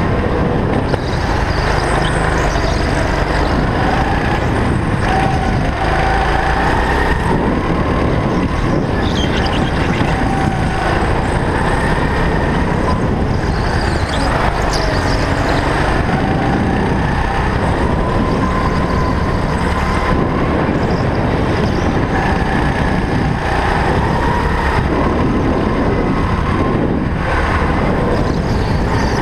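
Go-kart engine running hard, heard from aboard the moving kart. Its note rises and dips again and again as the throttle is worked through the corners.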